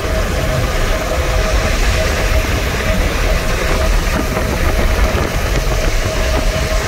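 Steady road noise inside a vehicle moving at highway speed: low tyre rumble and wind hiss, with a faint steady tone running through it.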